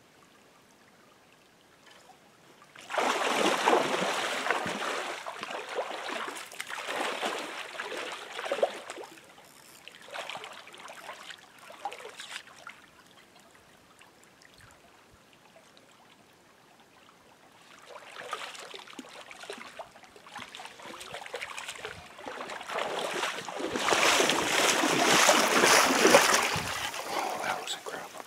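Stream water splashing and swishing around legs wading through a trout stream, in irregular spells. The first spell starts suddenly about three seconds in and dies away by the middle, and the second builds up near the end and is the loudest.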